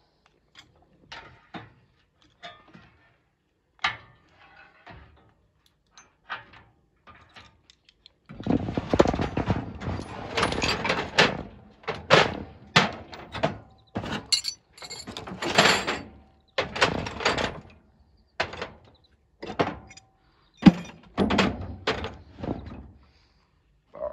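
Tools and metal parts knocking and clattering on a workbench in irregular bursts: a few scattered knocks at first, then louder, busier stretches of clatter from about eight seconds in.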